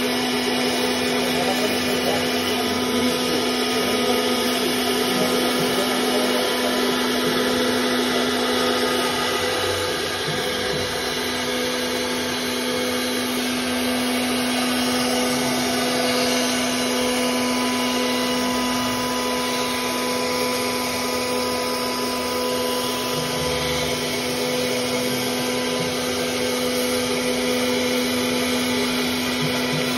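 CNC router spindle running at a steady pitch while its bit routes a curved profile through a white board sheet, a constant whine over the noise of the cut.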